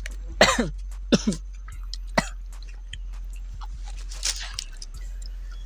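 A person coughing three times in quick succession, then a sharp hissing breath drawn through the teeth about four seconds in. These are reactions to the chili heat of a very spicy rujak sauce.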